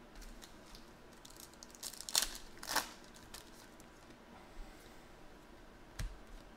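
Foil wrapper of a trading-card pack being torn open and crinkled: a burst of crinkling with two sharp rips between two and three seconds in, then light handling of cards with a single click near the end.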